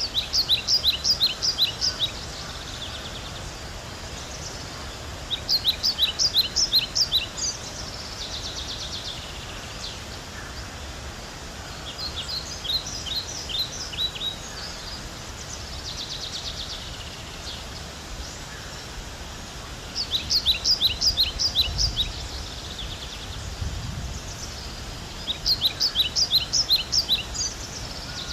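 A small songbird singing the same short phrase five times, about every five to seven seconds: a quick run of about eight sharp high notes ending in a short buzzy trill, over a steady outdoor background hiss.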